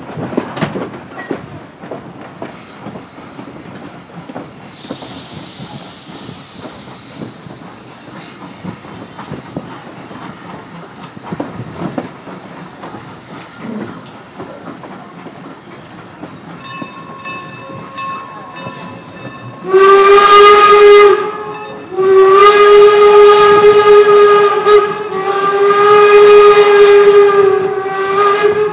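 Steam locomotive whistle blowing one short blast and then two long ones, the loudest sound here, over the rumble and clatter of a passenger car rolling on the rails.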